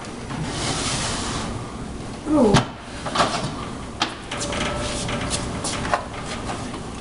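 Someone rummaging in a wooden cabinet: a creak falling in pitch ending in a sharp knock about two and a half seconds in, then several lighter knocks and the rustle of handled papers.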